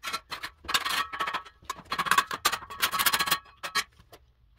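Steel trowels scraping and clinking against each other and the block: a run of irregular scrapes and sharp clicks, some leaving a brief metallic ring.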